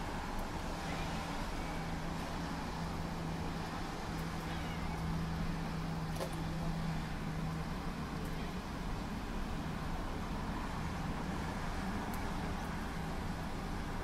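Steady road traffic noise with a low steady hum that stops about halfway through. A few faint, short high chirps sound over it.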